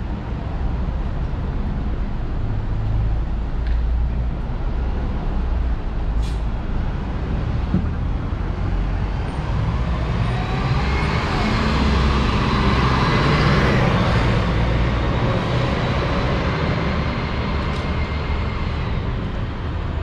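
City street traffic: a steady low engine rumble that swells in the middle as a city bus goes by, with a whine that rises and falls.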